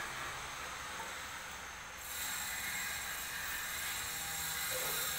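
Steady background hiss, a little louder from about two seconds in, with no distinct knocks or clicks.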